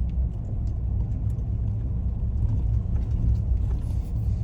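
Steady low road rumble of a car driving slowly, heard from inside the cabin.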